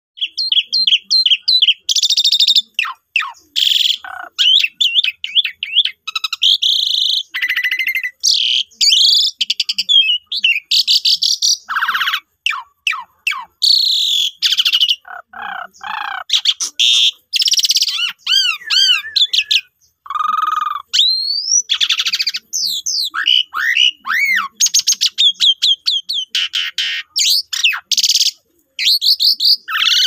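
Javan pied starling (jalak suren) singing non-stop, a fast, varied run of whistles, rising and falling glides, rattles and harsh scratchy notes, with mimicked phrases from other birds mixed in.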